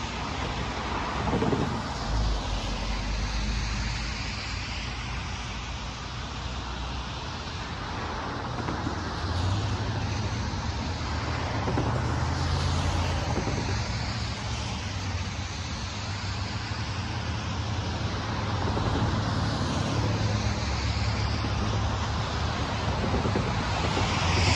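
Cars crossing the tracks on rain-wet pavement, their tyres hissing, each one rising and falling in sound as it passes, over a low steady hum.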